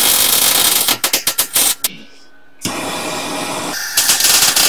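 Arc of a 110 V hobby MIG welder crackling and spattering in runs, with a short break about two seconds in before it starts again. The welder is running low on shielding gas, which the welder suspects is why the welds are coming out so poorly.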